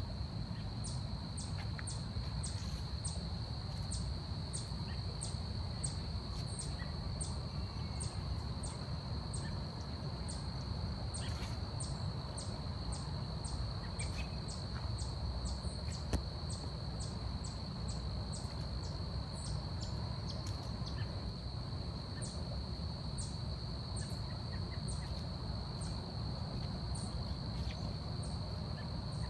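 Forest ambience: a steady, high insect drone, probably cicadas or crickets, holds one pitch throughout. A short, very high chirp repeats about one and a half times a second, pausing now and then. A low steady rumble of background noise runs beneath.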